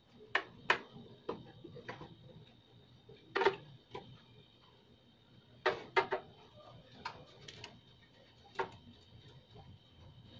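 Scattered short clicks and knocks of hands handling rubber hoses, wiring and fittings inside the open sheet-metal cabinet of a GOMCO 3060 suction machine, with the pump switched off.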